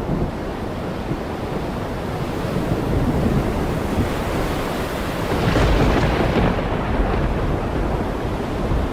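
Heavy rain pouring steadily, with a deep low rumble underneath that swells to its loudest a little past halfway.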